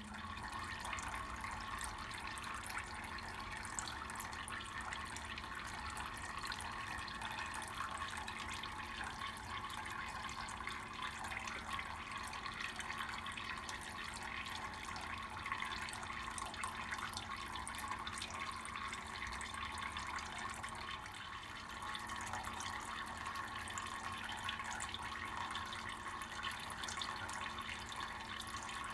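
Tap water running in a steady thin stream and splashing into a sink, dipping briefly about two-thirds of the way through.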